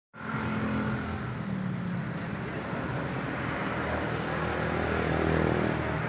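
A steady engine hum with a noisy hiss over it, holding an even level throughout.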